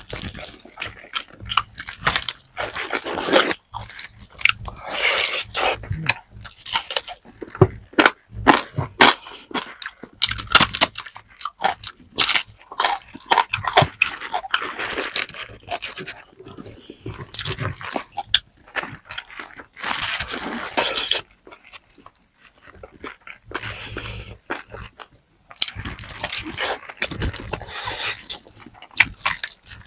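Close-miked eating of crispy pata (deep-fried pork knuckle): crunching bites and chewing in irregular bursts, with a short lull a little past the middle.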